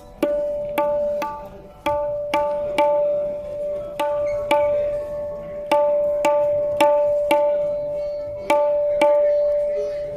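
Tabla's right-hand treble drum (dayan) struck with ringing open strokes about two a second, unevenly spaced. Each stroke rings at the same clear pitch and fades before the next: a sound check of the drum's tuning.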